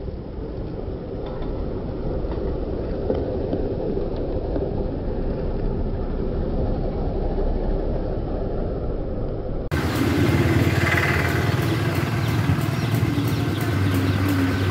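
Steady rumble of wind and road traffic that grows a little louder over the first few seconds. About ten seconds in it cuts off abruptly to music with a steady beat.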